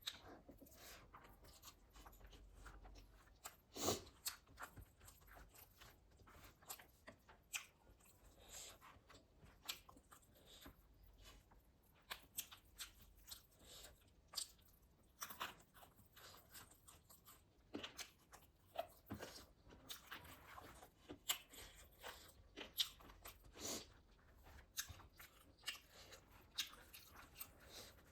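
A person chewing and crunching food close to the microphone: irregular soft crunches and wet mouth clicks, with a few louder crunches, the sharpest about four seconds in.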